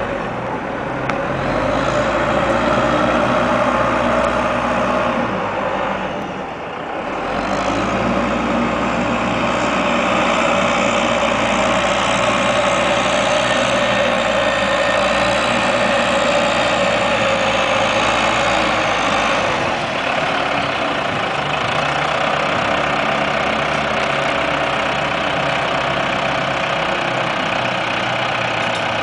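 Diesel engines of heavy logging machines, a grapple skidder and a wheel loader handling logs, running steadily. The sound dips briefly about six seconds in and its deepest part drops away shortly before twenty seconds in.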